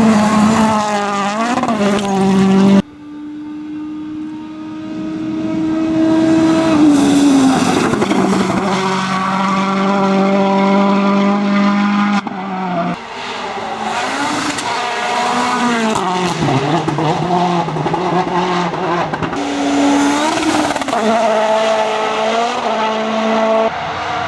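Citroën DS3 WRC rally car's 1.6-litre turbocharged four-cylinder engine running hard, its pitch rising and dropping with revs and gear changes. The sound changes abruptly about three and twelve seconds in as the footage cuts between passes.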